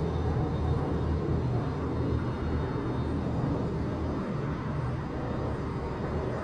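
Steady low rumble of outdoor transport noise, a passing vehicle on the nearby metro, road or rail lines, coming in through an open window and easing slightly toward the end.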